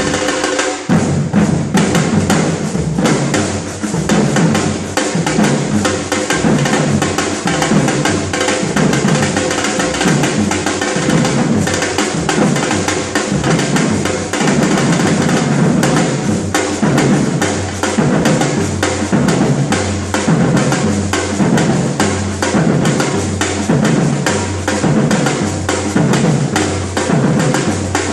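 A drum ensemble playing large drums with sticks in a steady, driving rhythm, dense strokes over a regularly repeating deep bass beat.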